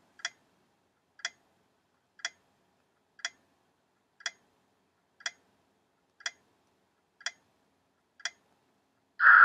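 Countdown-timer ticking sound effect, a clock-like tick once a second, nine ticks, then a short, louder sound at the very end as the ten-second countdown runs out.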